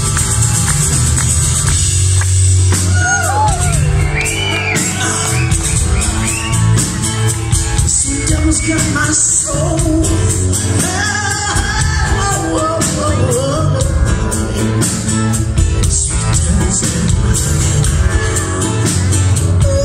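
Live rock band playing loud: drums, bass and guitar, with a woman singing in long, wavering lines, picked up from the audience in a large hall.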